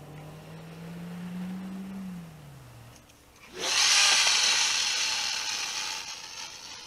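Conventional casting reel's spool spinning as line pays out during a long overhead cast: a loud whirring hiss that starts suddenly about three and a half seconds in, sweeping up in pitch, then fades over the next three seconds.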